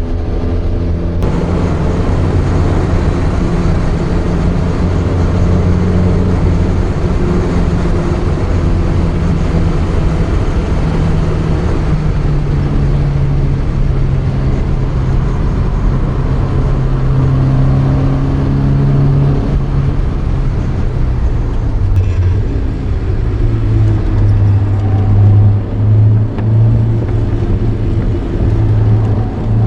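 Porsche 924's 2.0-litre four-cylinder engine running hard, heard from inside the race car's cabin. Its pitch steps up and down with gear changes, and near the end the level dips a few times as the throttle is lifted.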